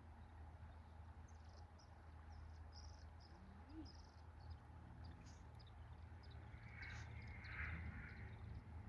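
Faint outdoor ambience: short high chirps from small birds or insects, coming and going over a low steady rumble, busier near the end.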